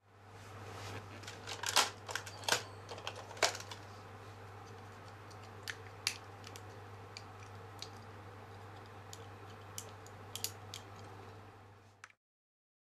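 Hard plastic parts of a DX Engine-oh toy robot clicking and snapping as they are handled and fitted together: a cluster of sharp clicks about two to three seconds in, then scattered lighter clicks, over a steady low hum. The sound cuts off abruptly near the end.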